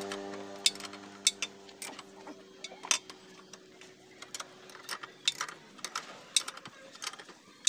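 Irregular sharp metal clicks and clinks of a steel wrench on a motorcycle's rear axle and chain-adjuster bolts, as a loose drive chain is taken up. A steady engine hum fades out over the first few seconds.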